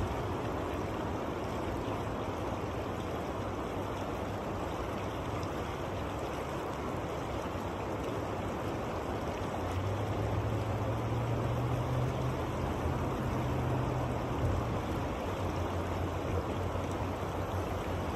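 Steady rush of the Yuba River's current flowing fast past the gravel bank. A low rumble swells for a few seconds in the middle.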